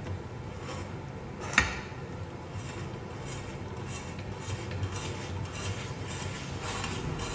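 Hand-crank spiral vegetable slicer cutting a carrot: one sharp click about a second and a half in, then an even run of light rasping ticks, two or three a second, as the crank turns the carrot against the blade.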